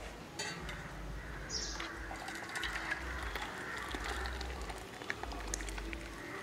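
Thick dal poured from a steel pot into a steel bowl, a steel spoon scraping and tapping against the metal in a run of small ticks and scrapes. A bird chirps once about a second and a half in.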